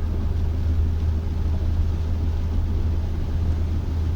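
Steady low rumble of a car driving on rain-soaked roads, heard inside the cabin, with an even hiss of tyres and rain over it.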